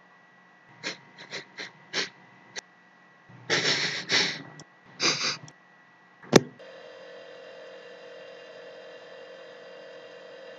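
A run of short, breathy whispered voice sounds and gasps, including a whispered "cállate". About six seconds in comes a sharp click, then a steady electrical hum with a low buzzing tone from a refrigerator running.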